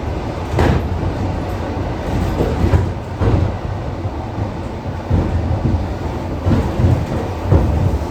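ED4M electric multiple unit running on the line: a steady low rumble with a few sharp clacks as the wheels cross rail joints.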